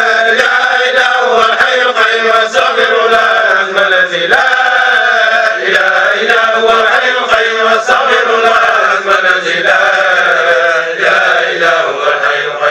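A group of men's voices chanting dhikr together, a loud, continuous religious chant with drawn-out notes and no pauses.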